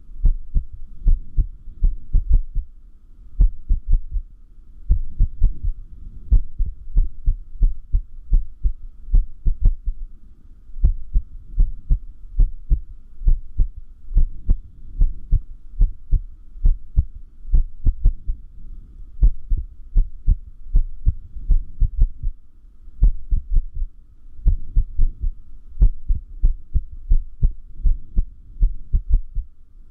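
Human heartbeat sounds: low thumps in an irregular rhythm, with uneven spacing and several longer pauses between beats, the sign of an arrhythmia.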